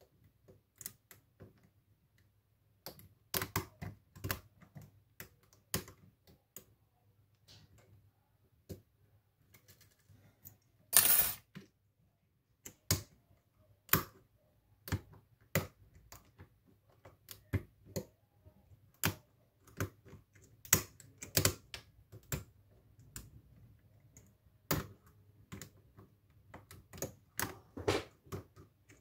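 Steel lock pick and tension wrench working the pins of a pin-tumbler lock: irregular small metallic clicks and scrapes, with one longer, louder scrape partway through.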